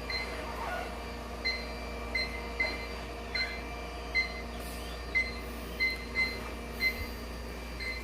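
iLife W400 floor-washing robot beeping: about a dozen short, high electronic beeps at uneven intervals, one or two a second, over a low steady hum from the robot running.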